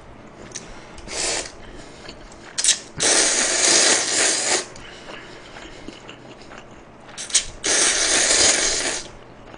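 A man slurping mouthfuls of spicy makguksu buckwheat noodles, in two long rasping slurps of about a second and a half each, with shorter slurps before them.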